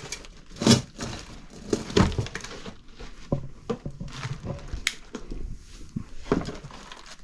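Footsteps among clutter: irregular knocks, thuds and crinkly rustling as objects are stepped on and brushed against while picking a way through a crammed room.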